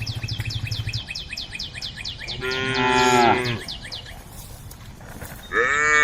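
Cows mooing: one long call a little over two seconds in, and another starting near the end. Through the first few seconds a fast, even high-pitched ticking or chirping runs underneath, about six a second.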